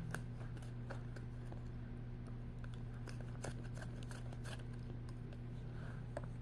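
Coloured pencil scratching on paper in short, irregular strokes, faint, over a steady low hum.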